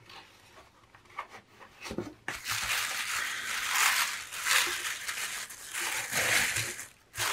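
Tissue paper rustling and crinkling as hands unwrap it inside a cardboard box. It starts a little over two seconds in, after a few soft taps of the box being handled.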